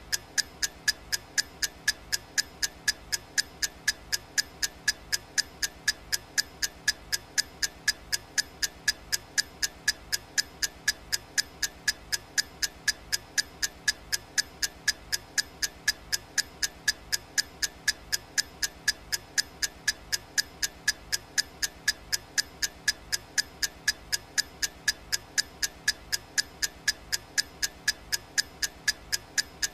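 Clock ticking sound effect: a steady, unbroken run of evenly spaced sharp ticks.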